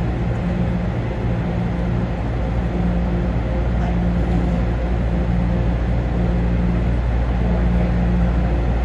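Steady low hum of a stopped AeroTrain people-mover car, heard from inside the car, with a low droning tone that fades in and out every second or so.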